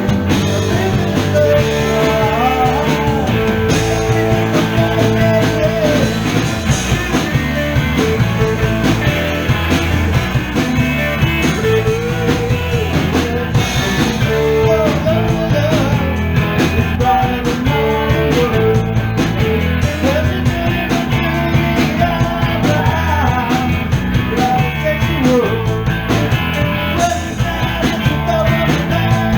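A rock trio playing a song live, with guitar and drum kit.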